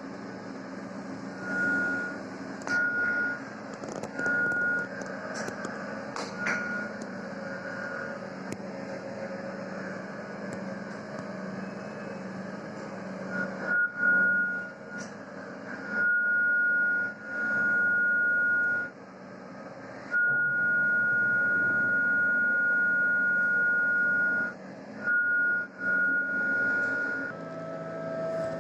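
A single high steady tone over a low hum and a noisy, machine-like rumble. The tone comes in short uneven beeps at first, then in long held stretches of a few seconds each.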